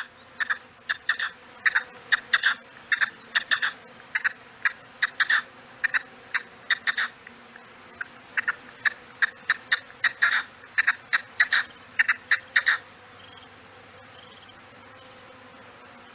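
Game bird giving a rapid, irregular series of short, sharp calls, roughly three a second, which stop about thirteen seconds in. A steady faint background hum runs underneath.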